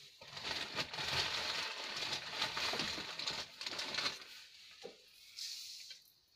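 Granulated sugar tipped from a bowl onto cooked grated-carrot halwa in a kadhai, a gritty rustling patter lasting about four seconds, then a few softer scrapes.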